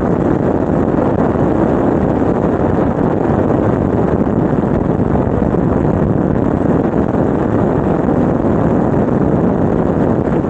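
Steady rush of wind on the microphone of a camera mounted on a Suzuki GSX-R750 riding at highway speed, with the bike's engine and tyre noise mixed in.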